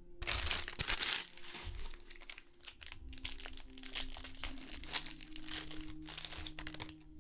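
Trading-card pack wrapper crinkling as it is torn open and handled, loudest in the first second.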